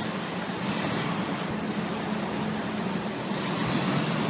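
Seagrave fire engine's diesel engine running as a steady low hum, over city street traffic noise.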